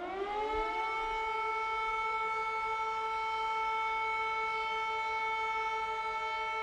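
Civil defence air-raid siren winding up, its pitch rising through about the first second and a half, then holding one steady tone: the alert for a duck-and-cover drill.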